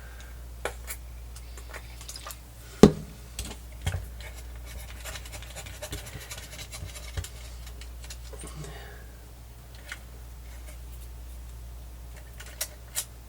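Faint scratching and rubbing as the tape head, pinch roller and capstan of a Sony Walkman cassette player are scrubbed clean with alcohol, with scattered small clicks and knocks of handling, the sharpest about three seconds in. A steady low hum runs underneath.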